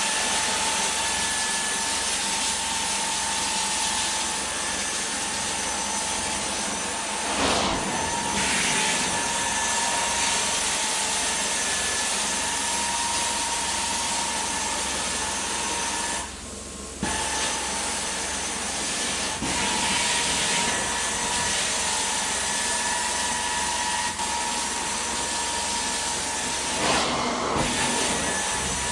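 Carpet-cleaning extraction wand pulled across carpet, its vacuum giving a steady, loud suction hiss with a high whine under it. The suction drops out for about a second halfway through, and there are two short surges, one about a third of the way in and one near the end.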